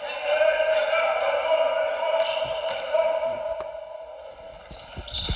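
A steady, slightly wavering drone fills the hall, with a few scattered knocks. Near the end come low thuds as the basketball drops onto the hardwood court after a free throw.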